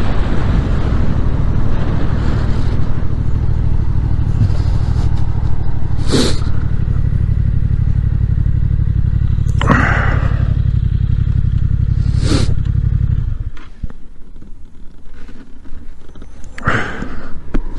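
Yamaha MT-07's parallel-twin engine running steadily, with three brief rushes of noise along the way. The engine note cuts out abruptly about thirteen seconds in, leaving a much quieter background.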